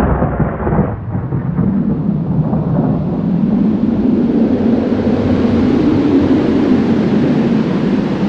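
Thunder sound effect: a sudden crack, then a long, loud, steady rolling rumble.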